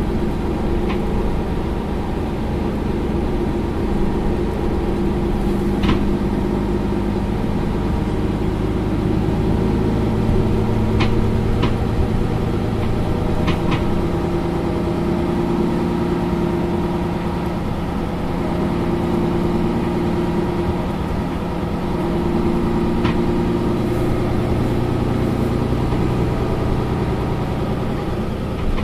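Mercedes-Benz Citaro Facelift LE city bus engine idling steadily while the bus stands, its note shifting slightly a couple of times, with a few short clicks.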